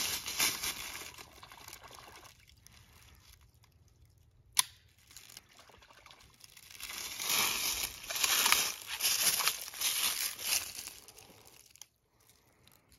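Footsteps crunching through dry leaves, then a pistol being worked through a muddy puddle: wet sloshing and squelching for several seconds. A single sharp click comes about four and a half seconds in.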